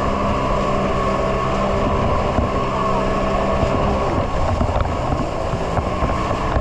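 Jet ski engine running under way at steady speed; its low steady note changes about four seconds in.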